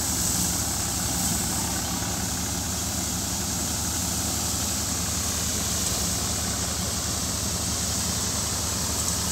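Tractor-driven wheat thresher running steadily while threshing wheat: the tractor's diesel engine holds a constant hum under load, with a steady hiss from the threshing drum and chaff blower.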